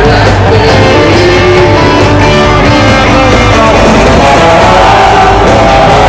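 Loud live rock band music, guitar prominent, with singing.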